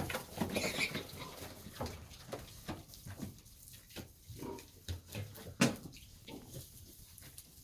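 Pigs grunting and moving about in their pen, with scattered short knocks and one sharp knock about five and a half seconds in.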